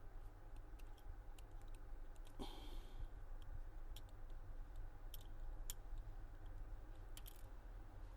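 Scattered small, sharp clicks of a smartphone's internal parts and a fingernail or small tools being handled during a teardown, as board connectors are unclipped. There is a brief scraping rub about two and a half seconds in, over a low steady hum.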